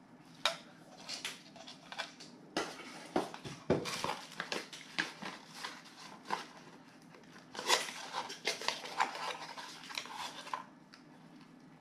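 Unpacking noise: a plastic bag crinkling and cardboard packaging being handled, with irregular clicks and knocks from the boxed steel impact sockets. It stops about a second before the end.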